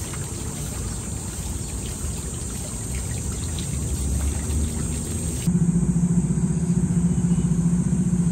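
A low, steady rumble, then about five and a half seconds in, a louder, steady engine hum starts abruptly, like a motor vehicle idling close by.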